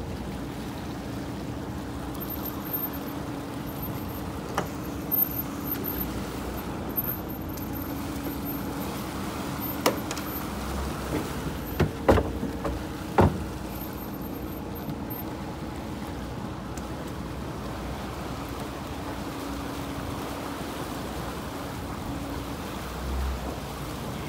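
A fishing boat's engine running steadily under water splashing and rushing along the hull, with a few sharp knocks and clicks on deck around the middle.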